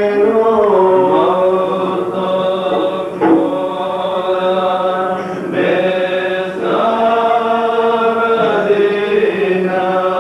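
West Syriac liturgical chant of the Holy Qurbana: voices sing a slow, drawn-out melody over a steady low note.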